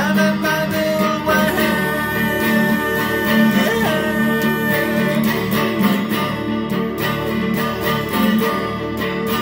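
A man singing over a strummed electric guitar.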